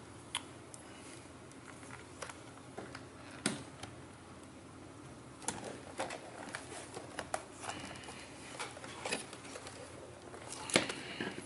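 Irregular clicks, taps and light scrapes of a partly disassembled HP 15 laptop's plastic case and metal parts being handled and shifted around its display hinges, with a sharper cluster of clicks near the end.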